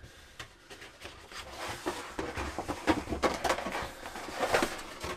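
A cardboard gatefold vinyl record sleeve being handled and opened out, giving a run of rustles, scrapes and light taps.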